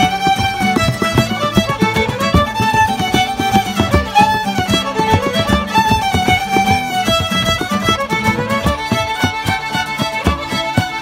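Several fiddles playing a traditional tune together, accompanied by strummed acoustic guitar and banjo.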